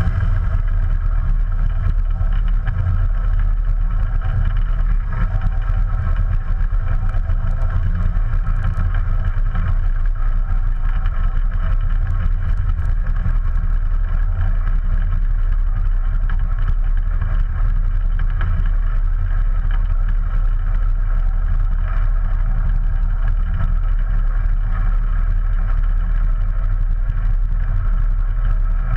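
Ikarus C42 ultralight's 100 hp Rotax 912 four-cylinder engine and propeller running steadily, with no change in speed.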